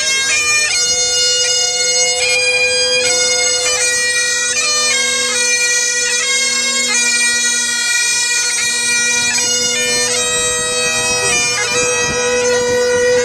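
Bagpipes playing a melody over steady drones.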